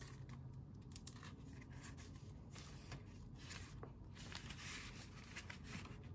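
Faint rustling and small clicks of paper dollar bills being handled and pushed into a clear plastic zip pocket of a ring binder, with a longer rustle near the end.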